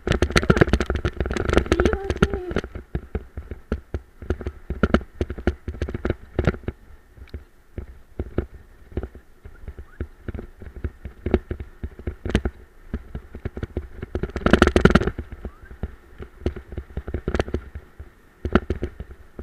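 Bulla dog cart rattling and jolting over a rough dirt track at speed, a continual run of irregular knocks and clicks. There are louder, denser bursts of jolting about a second in and again around fifteen seconds in.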